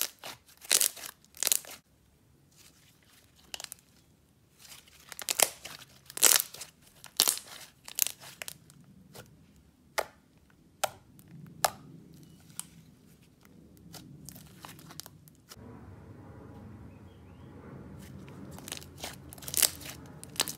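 Thick jelly slime being squeezed and pressed in the hands, making sharp bubble pops and crackles in quick clusters. Softer, steadier squishing takes over near the end.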